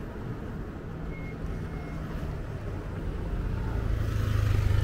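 A motor vehicle's engine running as it approaches, its low steady hum growing louder toward the end.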